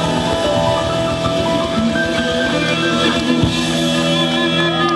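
Blues band playing live, with electric guitars, bass guitar, drums and saxophone, no vocals. The drum beat stops with a last hit about three and a half seconds in, and the band holds a final chord.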